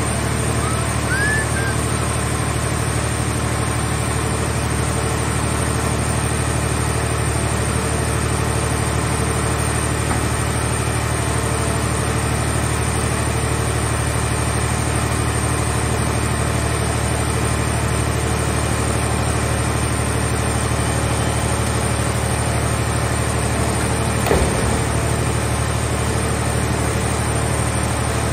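Hydraulic scrap car baler's power unit running with a steady low drone. A single metal knock comes near the end.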